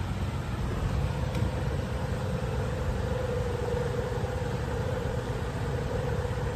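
A steady low mechanical hum, with a faint droning tone coming in about halfway through.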